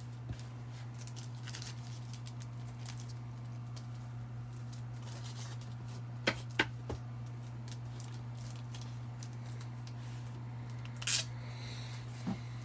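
A steady low electrical hum, with small handling sounds: two sharp clicks about halfway through and a short rustle near the end.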